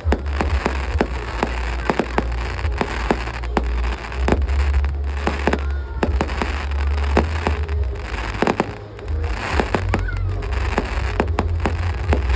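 Aerial fireworks display: shells bursting in quick succession, many sharp bangs over a steady low rumble.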